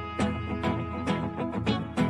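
Instrumental background music with sustained notes and a steady beat.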